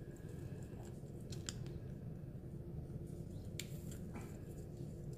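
Faint handling of a small plastic concealer tube, turned and uncapped in the hands, with a few sharp little clicks scattered through, over a faint steady hum.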